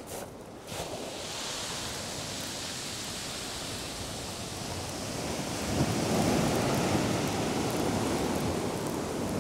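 Surf breaking on a shingle beach: a steady wash of noise, with a heavier wave crashing in about six seconds in and staying louder.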